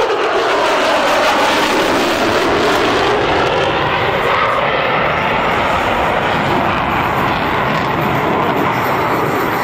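An F-35 Lightning II's Pratt & Whitney F135 jet engine making a loud, steady roar as the fighter passes in afterburner. A whining tone dips and rises in pitch through the noise as it goes by.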